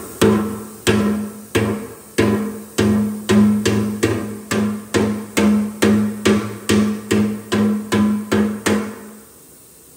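Small sledgehammer beating a heated spot on a large steel exhaust pipe elbow, steady blows about one and a half a second, each leaving the pipe ringing with a low hum. The pipe wall is being dented in to clear a corner where it rubs. The blows stop a little before the end.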